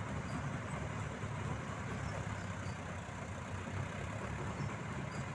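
Paddy combine harvester running steadily while it cuts rice: a constant low drone of engine and machinery.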